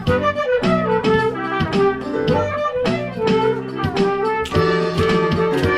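Instrumental music from a live band playing the score of a stage musical, with sustained notes over a steady beat.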